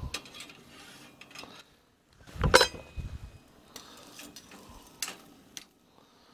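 Metal tongs clinking and clattering as a seared salmon fillet is lifted off the grill tray and set on a plate: a clank at the start, the loudest clatter about two and a half seconds in, then a few lighter clicks of the tongs on the cutting board.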